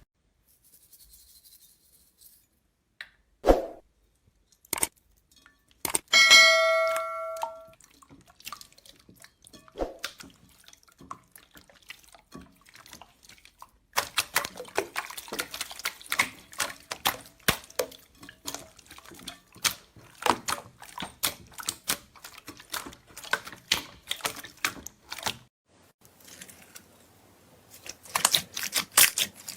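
Slime being pressed and squished, giving sticky crackling and popping clicks: sparse at first, then dense and continuous from about halfway through. Before the crackling begins there is one short ringing ding.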